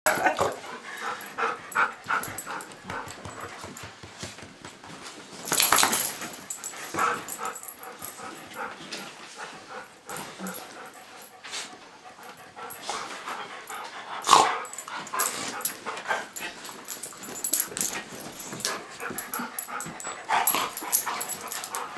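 Two dogs, a pit bull puppy and a golden retriever, play-fighting: irregular scuffling and mouthing noises with short dog vocal sounds, louder about six seconds in and again around fourteen seconds.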